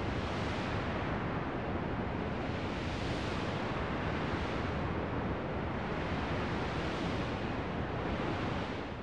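Steady rushing noise that swells and eases every couple of seconds, dropping a little near the end.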